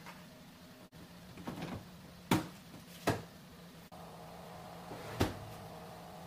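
Sharp knocks on car bodywork: two clunks while the rear end is worked on, then a heavier thump near the end as the trunk lid of a Nissan Sentra sedan is shut, over a steady low hum.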